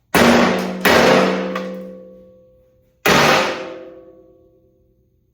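Three hard hammer blows on metal, knocking out the wheelbarrow's stuck bolts. Each blow rings on for one to two seconds.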